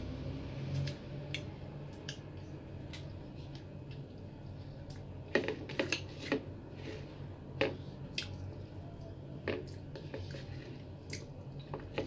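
Close-up sounds of eating rice and fish by hand: wet squishes and short clicks of chewing and lip-smacking, with fingers pressing and scooping rice in a ceramic bowl, over a low steady hum.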